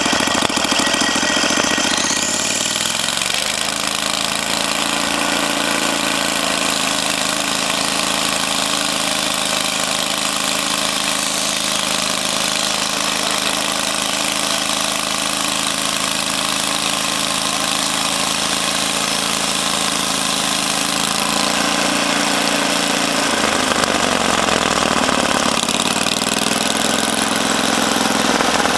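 Portable sawmill's engine running: it revs up about two seconds in, holds a steady high speed, then drops and picks up again near the end.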